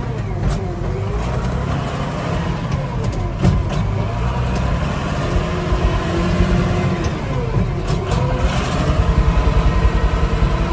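Case Maxxum 5130 tractor's diesel engine running under way, heard from inside the cab, its note shifting about two-thirds of the way through. It runs smoothly and is called lovely, sweet as a nut.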